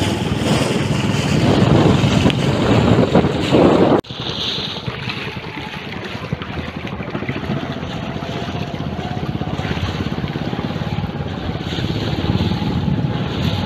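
Small boat's motor running steadily as the boat travels across open water, with wind buffeting the microphone. The sound breaks off abruptly about four seconds in and carries on a little quieter.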